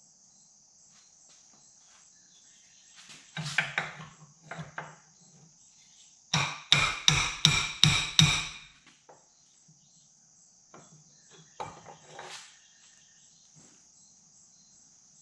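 Hammer strikes on metal as a bent muffler bracket is knocked back into shape. A few blows come about three and a half seconds in, then a fast run of about seven strikes halfway through, then a few lighter knocks. Crickets or other insects keep up a steady high buzz behind.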